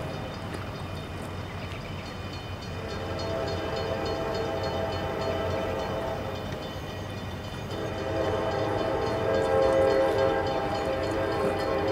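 Diesel locomotive air horn from an approaching freight train, sounding several long chords that swell and fade and grow louder toward the end, over the low rumble of the train.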